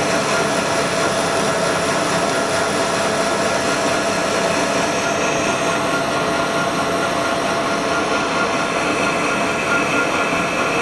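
Metal lathe turning a large steel sleeve while a tipped cutting tool takes a cut along its outside diameter: a steady machine hum and cutting hiss with a few held whining tones.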